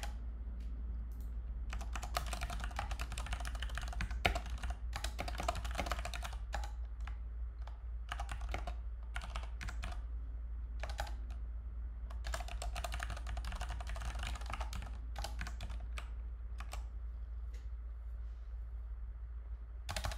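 Computer keyboard typing: bursts of quick keystrokes broken by short pauses, over a steady low hum.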